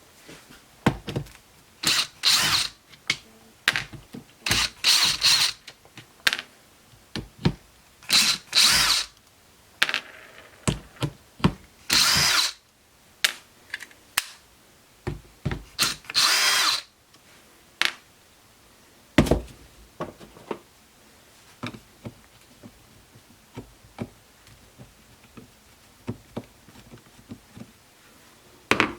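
Cordless drill-driver running in short bursts of about a second each, about five times over the first half, backing the screws out of a gas trimmer's plastic handle and trigger housing. Between and after the bursts come light clicks and knocks of screws and plastic parts being handled, with one sharper knock past the middle.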